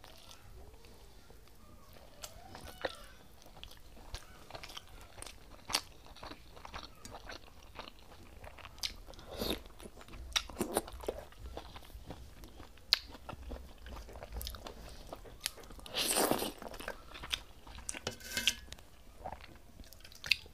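Close-miked eating sounds of rice and saag eaten by hand: chewing and mouth smacking with many scattered sharp clicks and a few louder bursts, the longest about sixteen seconds in. Near the end, a steel spoon clinking against the steel bowl as curd kadhi is served.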